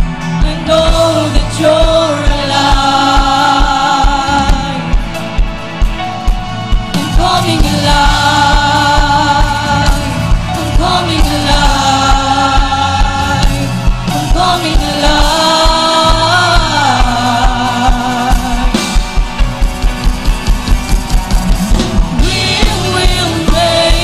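Large choir singing a worship song together over backing music with a steady beat; the beat quickens near the end as the music builds.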